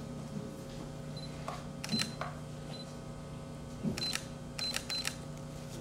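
Camera autofocus-confirmation beeps and shutter clicks: short high beeps, most followed by a sharp click, about two seconds in and then several in quick succession near the end, over a steady low electrical hum.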